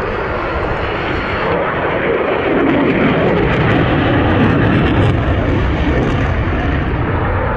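A display aircraft flying overhead: a steady engine noise that swells a little toward the middle and then eases.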